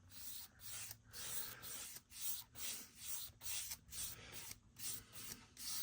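Paintbrush stroking varnish onto a wooden speaker cabinet, a soft swish about twice a second.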